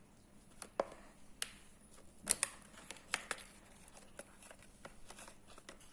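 Faint, scattered clicks and light rustling as a plastic Lego Super Mario blind bag is opened and the pieces inside are handled.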